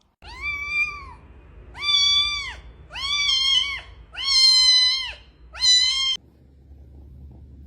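A cat meowing five times in a row, each meow a long, high, drawn-out call.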